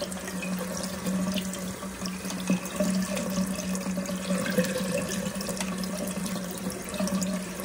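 Bathroom tap running into the sink, the stream splashing over hands rubbing a small toy monster truck clean, with a steady low hum underneath.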